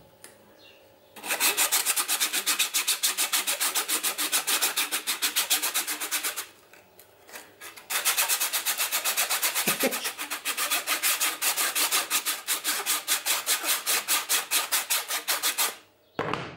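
Coarse sanding belt on a hand-held sanding bow rubbed back and forth over a workpiece in quick strokes, about five a second. It comes in two long bouts with a pause of about a second and a half between them.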